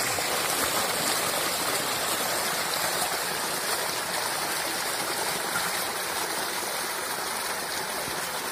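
Stream water gushing steadily over stones and a woven mat, channelled through a panai pari fish trap.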